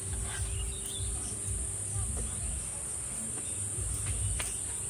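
Steady high-pitched insect chorus, with a low rumble beneath it and a single light click near the end.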